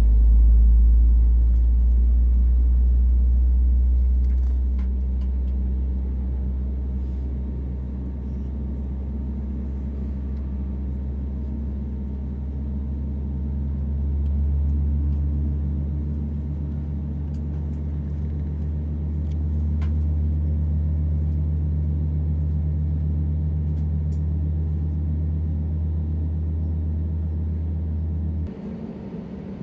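Steady low rumble and hum inside the cabin of an Airbus A320neo on the ground, engines running as the plane taxis. It is loudest in the first few seconds and cuts off abruptly near the end, giving way to a quieter sound.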